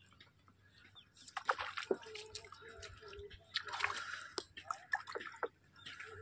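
Water splashing and sloshing in short bursts, about one and a half seconds in and again around four seconds, with sharp clicks and knocks in between.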